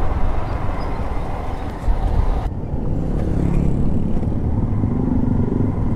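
Motorcycle running along a road while being ridden, a continuous low rumble of engine and road noise, with a steadier engine tone coming through in the second half.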